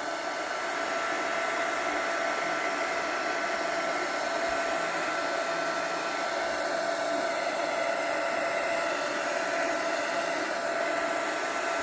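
Hair dryer running steadily, a constant rush of air with a steady whine from its motor.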